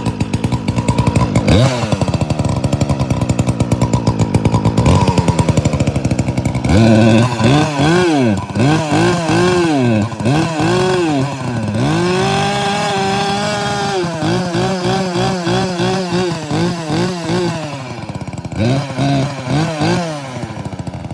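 Poulan Pro PP4218A two-stroke chainsaw running through a home-welded muffler that leaks a bit. It runs at low revs for the first six seconds or so, then is revved up and down again and again, held at high revs for about two seconds midway.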